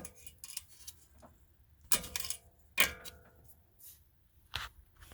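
Hand tools clinking against metal: a few sharp metallic clinks, the two loudest about two and three seconds in, each with a short ring.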